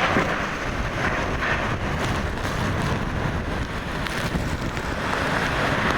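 Hurricane-force eyewall winds of Category 3 Hurricane Idalia blowing in gusts, a steady wash of noise that swells and eases, with wind buffeting the microphone.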